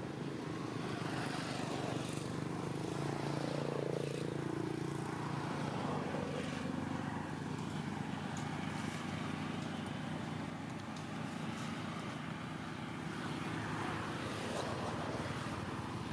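A steady low engine drone with a few held tones.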